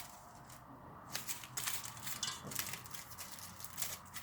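Aluminium foil crinkling and crackling in irregular bursts as it is squeezed and handled by hand.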